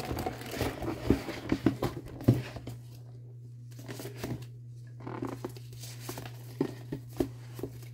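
Cardboard gift box being handled and opened: knocks, scrapes and paper rustling, busiest in the first couple of seconds, then lighter scattered clicks and rustles.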